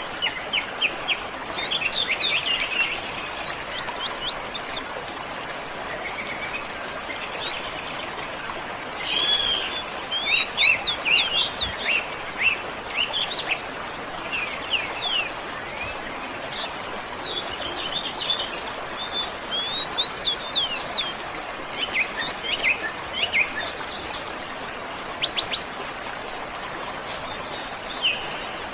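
Many birds chirping and trilling in quick, scattered calls over the steady rush of a waterfall.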